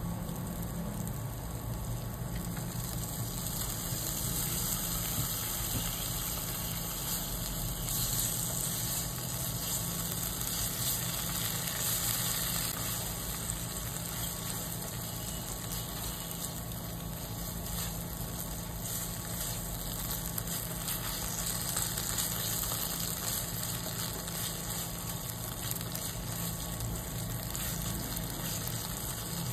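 Red curry paste frying in oil in a non-stick pan, a steady sizzle, over a low steady hum.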